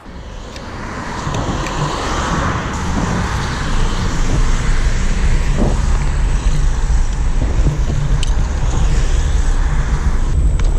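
Rushing wind and road noise from riding a rental electric kick scooter. It builds over the first few seconds as the scooter picks up speed, then holds steady and loud.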